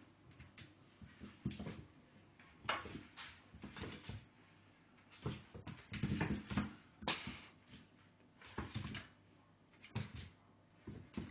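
A cat playing with a person's hand on a hard floor: an irregular string of short scuffling and scratching sounds, mixed with a few small animal vocal sounds.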